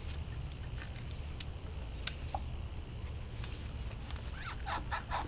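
Light, scattered clicks of pliers working a coolant hose clamp at the thermostat housing, over a steady low hum. Near the end a crow caws several times.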